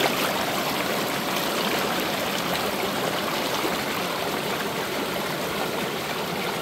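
Small waterfall pouring down a narrow rock chute into a pool: a steady rush of falling water.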